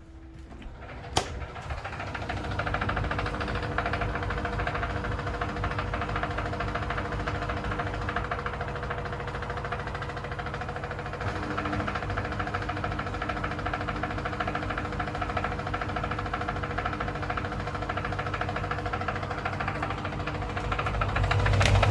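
Car engine running with a knock. The steady, rapid rhythmic knocking builds up after a sharp click about a second in and gets louder near the end.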